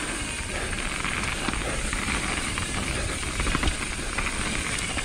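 Mountain bike rolling fast down a dirt trail: a steady low rumble of wind on the microphone over the tyres on dirt, with many small rattles and ticks from the bike.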